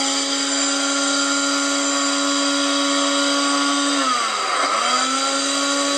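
Countertop blender motor running at a steady high whine while it blends oranges. About four seconds in it bogs down under the load, the pitch sagging for about a second, then picks back up to speed.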